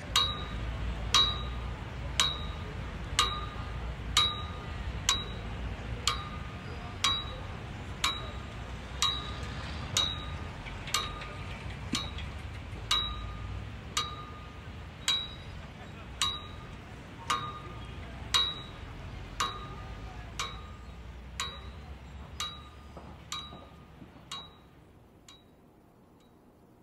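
A small bell-like chime struck at a steady pulse of about once a second, each strike ringing briefly with a high tone and a higher one, over a low rumble. The strikes and the rumble fade out near the end.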